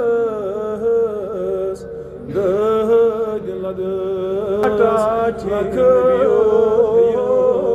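A man chanting a dua in a drawn-out, melodic voice, holding long wavering notes, with a short breath pause about two seconds in.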